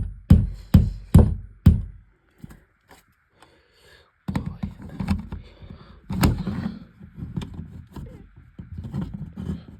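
Five sharp taps about half a second apart, tapping a wall plug into a hole in the wall for an alarm's mounting screw, then a pause and low, uneven handling noise.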